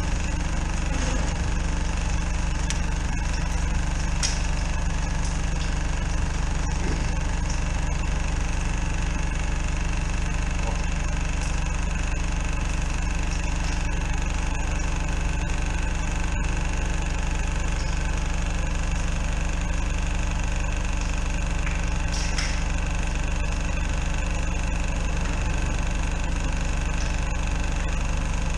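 Engine of a drain-jetting unit running steadily at a constant speed.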